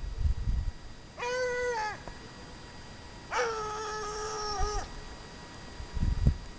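Ariégeois hound giving tongue on a hare's trail: two long bays, the first short and dropping at its end, the second longer and held. Dull low thumps at the start and near the end.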